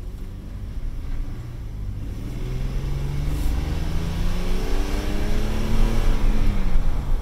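A BMW 530i's straight-six engine heard from inside the cabin as the car accelerates away. Its pitch rises steadily and the sound grows louder, then the pitch drops near the end as it shifts up.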